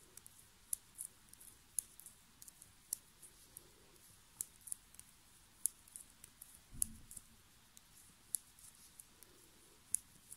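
Metal 3 mm circular knitting needles clicking and tapping against each other as stitches are worked, in quick irregular ticks. There is one soft low bump a little past the middle.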